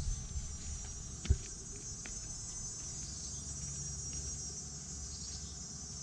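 Insects trilling steadily in a high, even chorus, over a low rumble, with a single short thump just over a second in.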